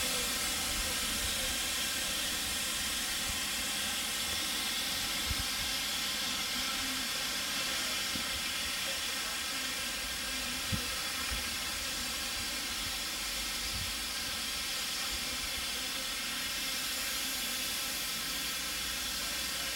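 Narrow-gauge steam locomotive hissing steadily, a continuous rush of escaping steam, with a couple of light knocks partway through.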